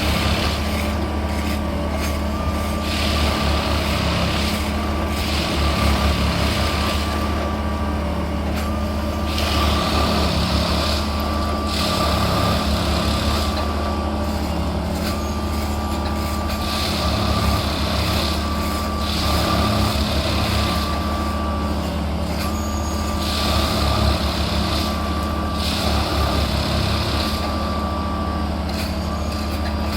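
Plasser & Theurer track lifting and tamping machine working: a steady diesel engine hum with bursts of hiss every few seconds and a broken high tone running through.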